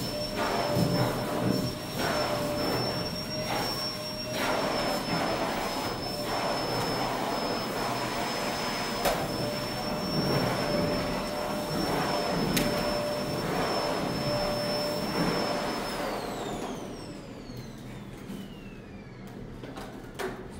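A motor running with a steady high whine, then winding down about sixteen seconds in, its pitch falling as it slows. Irregular knocks and scraping run beneath it.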